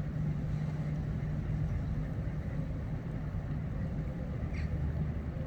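Inland cargo ship's engine running as the ship passes at low speed: a steady low hum over a low rumble.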